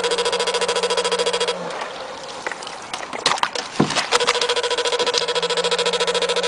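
Electric fish shocker buzzing in fast, even pulses while its pole is in the water. The buzz breaks off for about three seconds, leaving a few knocks and clicks, then resumes, and there is a sharp knock right at the end.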